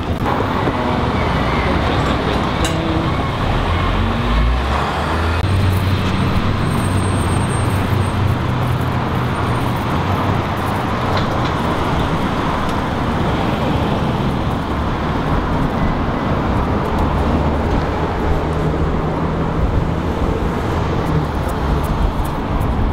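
City street traffic: motor vehicle engines running and passing, a steady roadway noise with a low engine hum that swells at times.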